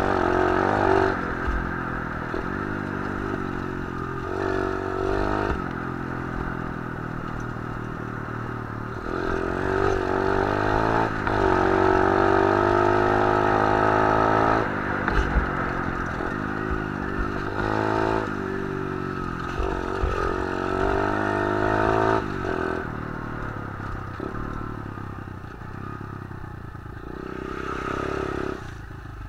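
A 125cc pit bike engine being ridden, revving up and easing off again and again with the throttle. It runs loudest for a long stretch in the middle and drops back lower and quieter near the end.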